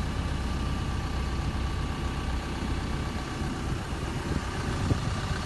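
Doosan DX140LC excavator's four-cylinder Perkins diesel engine idling steadily.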